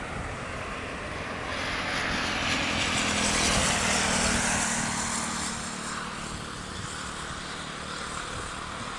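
Jet engines of a Boeing 737 on final approach, heard from the ground as a steady rushing noise with a low hum. The sound swells to its loudest a few seconds in, then eases off.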